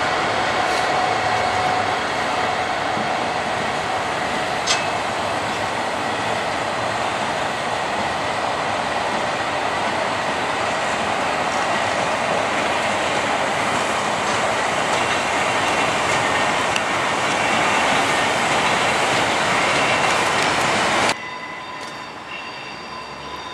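Freight train's open box wagons rolling past, a steady loud clatter of wheels on rail with a faint high whine and one sharp click about five seconds in. Near the end the sound drops abruptly to a much quieter background with a few faint steady tones.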